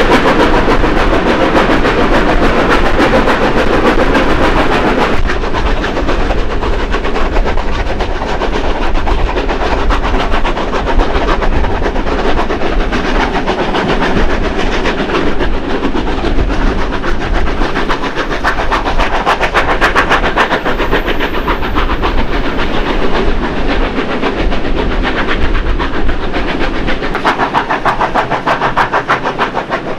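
Two steam locomotives, a NSW 30 class and a 36 class, working a train up a steep grade, their exhaust chuffing over the clatter of the carriage wheels on the rails, heard from a window of the train.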